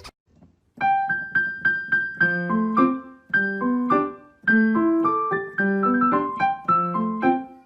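Background music played on a piano-like keyboard, starting about a second in after a brief silence: a repeated high note over a moving line of lower notes at an even pace.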